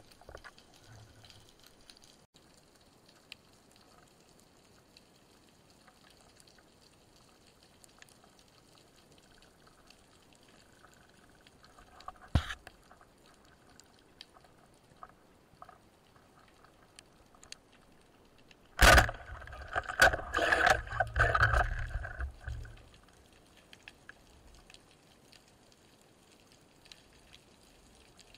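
Underwater sound of a spearfishing dive: a faint steady water hiss, a single sharp knock about twelve seconds in, and a loud sudden burst about nineteen seconds in, followed by three or four seconds of bubbling, rattling noise.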